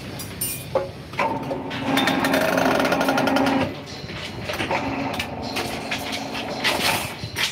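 Electric rebar bending machine running, its motor and gear-driven turntable humming under load as it bends a bundle of steel rebar; loudest from about one second in to past three and a half seconds, then lighter, with scattered sharp clicks and knocks of steel.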